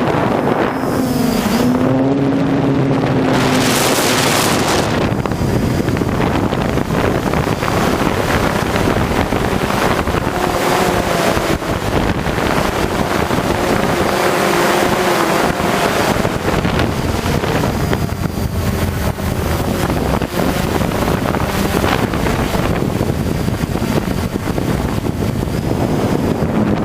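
Heavy wind buffeting the microphone, with the hexacopter's motors and propellers whining underneath, their pitch drifting up and down.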